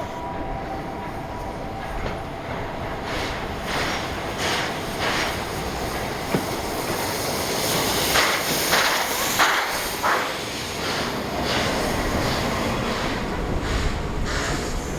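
A steam-hauled passenger train passing, its wheels clattering over the rail joints in irregular strokes, over a low rumble.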